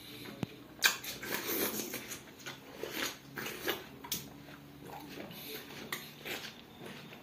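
Close mouth sounds of eating juicy watermelon: biting into the slices and chewing, with irregular wet crunches and smacks, the sharpest about a second in.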